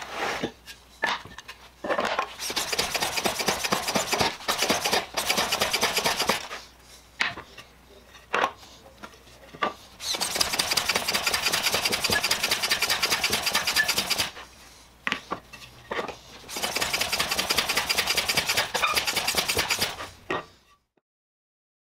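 Hand plane on a shooting board shaving end grain: runs of quick strokes with a dry, rasping hiss, broken by short pauses and single strokes. It stops near the end.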